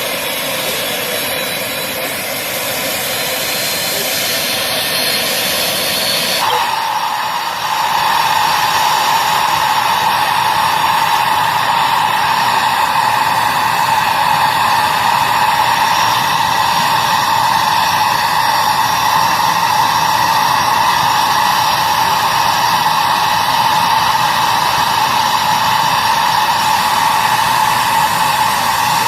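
Helicopter turbine engine and rotor noise: a loud, steady whirring drone. It changes abruptly about six seconds in, becoming louder with a steady whine.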